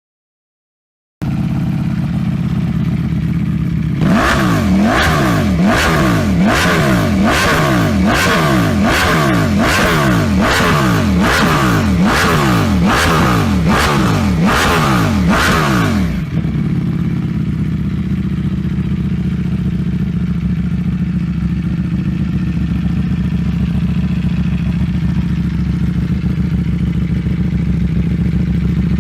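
Ducati Panigale V4 engine through an aftermarket exhaust, starting about a second in at a steady idle, then revved in a quick series of throttle blips, a little more than one a second for about twelve seconds, before settling back to idle.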